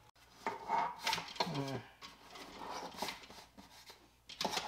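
Light clicks and rustling from hands working on a small retractable hose reel's fittings and hose, with a short voice-like sound about a second in.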